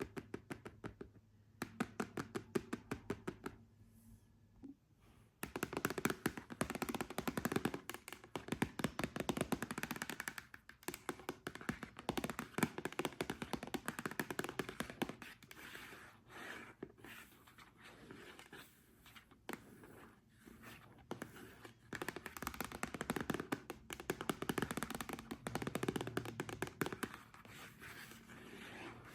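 Long fingernails tapping rapidly on a hard surface, then, from about five seconds in, scratching and rubbing over it in a dense, continuous stream.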